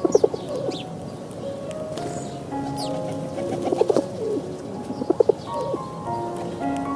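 Bird calls over light background music: low pulsing calls come in short groups three times, with high, quick falling chirps between them.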